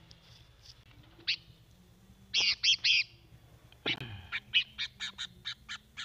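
Sooty-headed bulbul (kutilang) calling as it is caught by hand: a short note, then three loud harsh calls in quick succession. A knock follows, then a rapid run of short sharp notes, about five a second.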